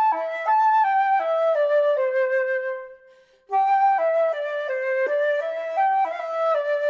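Background music: a flute playing a stepwise melody over a softer lower line. About three seconds in, a held note fades to a brief pause, then the tune starts again.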